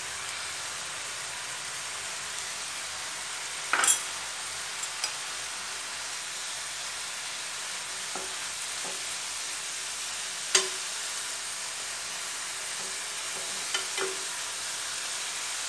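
Ash gourd peel pieces sizzling in a frying pan with a steady hiss, and a spoon stirring them, giving a few sharp clinks and scrapes against the pan, the loudest about four seconds in and again near ten and a half seconds.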